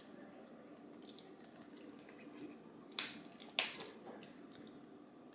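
Crab leg shell cracked by hand: two sharp cracks about half a second apart, with a few faint ticks between quiet stretches.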